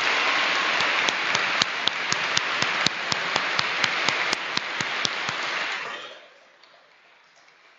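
Audience applauding, with one clapper standing out in sharp, even claps about four a second. The applause fades out about six seconds in.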